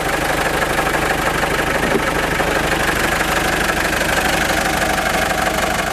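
Vehicle engine running steadily, with a fast, even firing pulse.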